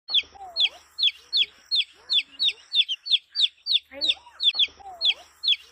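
A chicken chick peeping repeatedly and loudly, about three short, high calls a second, each sliding down in pitch. Lower, softer sliding calls sound beneath them now and then.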